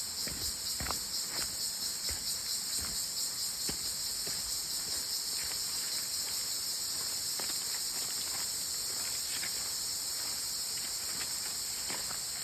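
Steady, high-pitched chorus of insects, with footsteps scuffing on a forest trail, heard more in the first few seconds.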